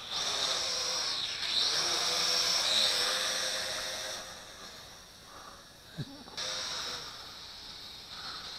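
Yu Xiang 668 Q8 toy quadcopter's motors and propellers buzzing as it flies low and fast, the pitch and loudness rising and falling with the throttle. Loudest in the first few seconds, fading as it moves off, then swelling again a little past the middle.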